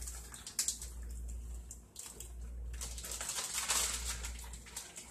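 Plastic crinkling and rustling as cubed ham is shaken from its package into a quart-size zip-top baggie, with a few sharp clicks about half a second in and a longer stretch of crinkling in the second half.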